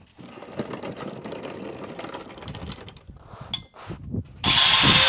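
Tools and parts clattering as they are handled. Near the end, a much louder steady whine starts up and rises slightly in pitch.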